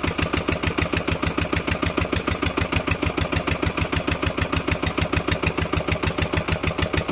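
Lister LD1 1.5 hp single-cylinder air-cooled diesel running steadily under the Tarpen generator, with an even, rapid firing beat.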